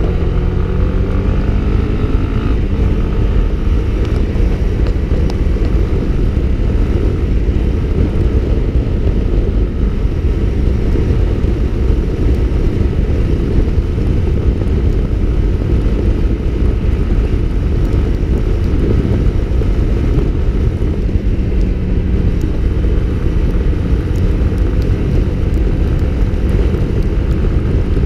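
Honda CB Twister's single-cylinder engine running while riding at road speed, largely buried under steady wind rush on the camera's microphone. In the first couple of seconds the engine note climbs as the bike accelerates.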